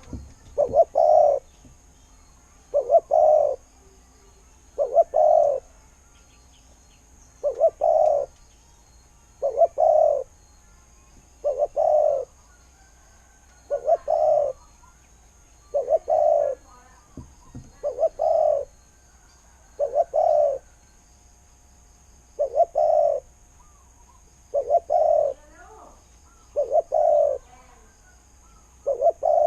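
Spotted dove cooing over and over, one short phrase about every two seconds, each a brief note followed by a longer two-part coo: the song of a decoy dove calling.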